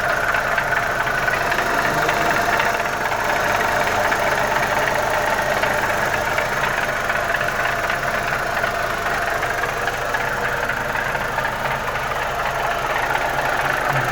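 Audi 1.8 turbo four-cylinder engine idling steadily with a fast ticking or clacking from inside the engine. The owner cannot place its cause; some have told him it comes from the oil.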